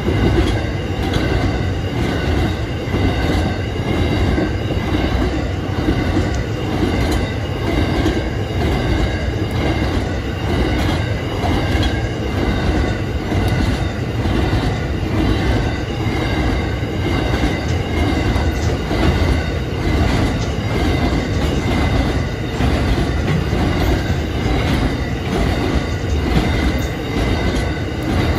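Long coal train's hopper wagons rolling past at steady speed: a continuous rumble of wheels on rail, with a thin steady squeal from the wheels over it.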